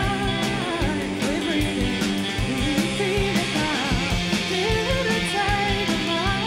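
Indie rock band playing live, with electric guitar, bass guitar and a steady drum beat under a sung vocal line.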